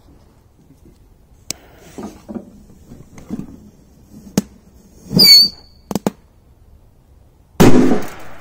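Scattered sharp clicks and knocks of firecrackers being set on an oven's enamelled steel top, with a short squeak about five seconds in and a louder noisy burst near the end.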